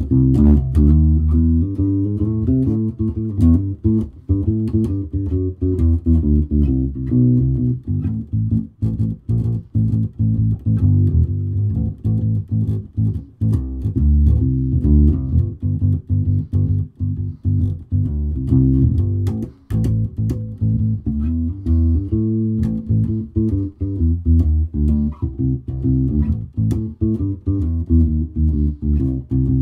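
Aria Pro II Thor Sound short-scale electric bass played solo through an amp: a continuous line of plucked notes with no backing track.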